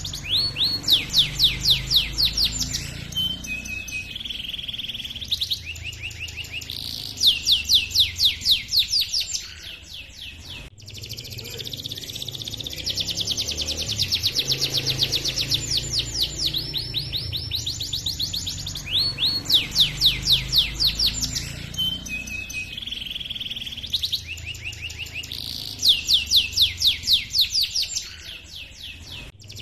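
Male domestic canary singing a long rolling song: rapid runs of repeated chirping notes in phrases, with trilled passages in between and short pauses. A low steady hum runs underneath.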